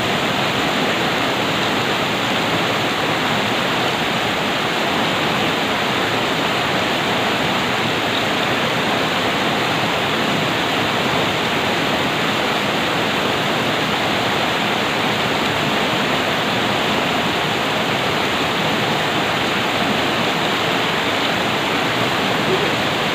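Fast-flowing river water rushing in a steady, unbroken wash of noise.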